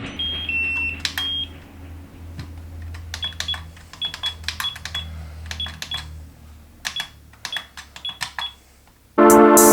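Short high electronic beeps, many paired with sharp clicks, in irregular runs over a low steady hum, like buttons pressed on a beeping electronic device.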